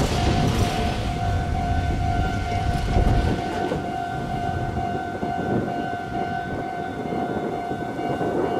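Railway level-crossing warning bell ringing steadily, an electronic tone repeating without pause. A heavy low rumble under it stops suddenly about three seconds in.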